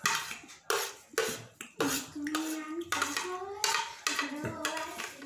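Metal plates and bowls clinking as food is eaten by hand from them: a series of sharp knocks, several followed by a short ringing tone.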